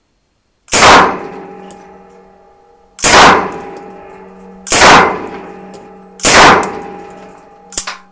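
Sterling L2A3 9x19 mm submachine gun firing four times, about one and a half to two seconds apart. Each report is loud and rings on in the indoor range. A small click follows near the end.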